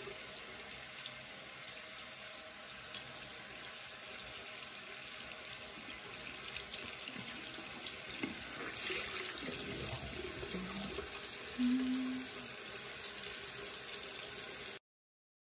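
Water running steadily from a sink tap while a dried face mask is washed off; it cuts off abruptly near the end.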